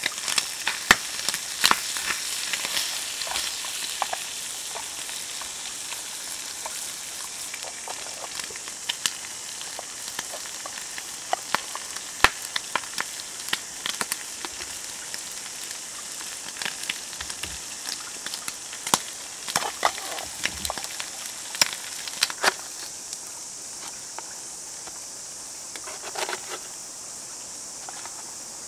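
Bacon sizzling in a small camp frying pan, a steady high hiss, with frequent sharp clicks and taps of tongs against the pan. The sizzle thins out near the end.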